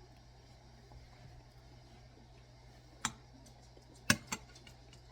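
A spoon tapping against a soup bowl: three short sharp clinks, the loudest about four seconds in, over a low steady room hum.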